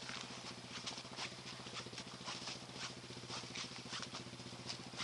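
Footsteps through leaf litter and mud, irregular and several a second, over the steady low hum of a quad bike engine idling.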